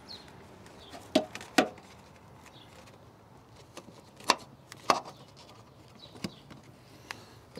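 Sharp knocks and taps of a sheet-metal airbox panel being set and pressed into place in a truck's engine bay by hand: two loud pairs of knocks, a little after a second in and again past four seconds, then a couple of lighter taps.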